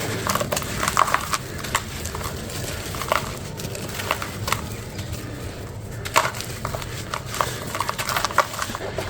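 A crunchy, hole-shaped crumble block being crushed and crumbled, giving irregular sharp crunches and crackles, a few to several a second.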